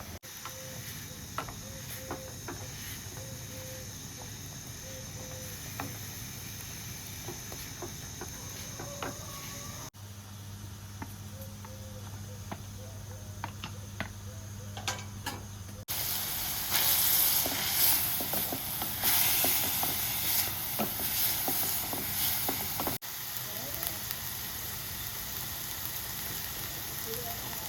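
Food sizzling and crackling as it fries in a pan over a fire, loudest for several seconds in the middle, between quieter stretches with a steady low hum, scattered clicks and a few faint short calls.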